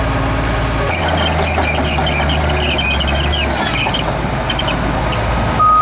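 Komatsu D58E crawler bulldozer's diesel engine running steadily, with a chatter of high metallic squeaks and squeals from about a second in. A reversing alarm beeps once right at the end.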